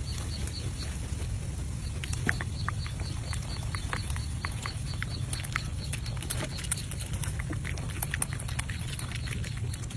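Wild boar moving about and foraging, making many scattered short crunches and rustles over a steady low rumble.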